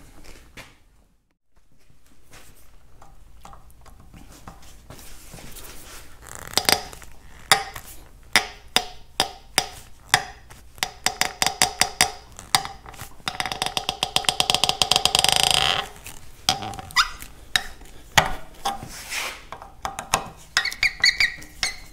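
Steel tool tapping and working at a pressed-in brass fitting on a cast-iron Farmall M carburetor body held in a vise. The sharp metallic taps start several seconds in and come about one or two a second, with a couple of seconds of rapid rattling, ringing tapping about two thirds of the way through.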